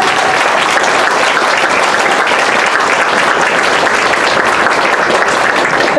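Crowd applauding steadily, a dense even clapping throughout.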